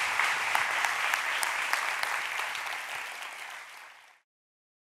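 Audience applauding, a dense patter of many hands clapping that eases off slightly and then cuts off suddenly about four seconds in.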